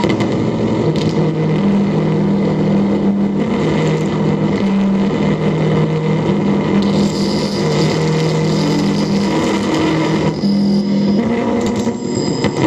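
Live electronic noise music: a loud, dense wash of noise over low droning tones that step to new pitches every second or so, with a thin high tone joining about seven seconds in and dropping out a few seconds later.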